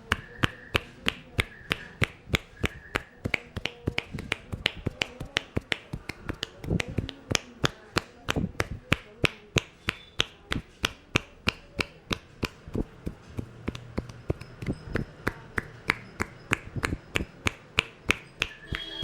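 Hands striking the head and shoulders in the percussive tapping of a traditional Indian head massage: sharp slaps in a steady rhythm, about four a second.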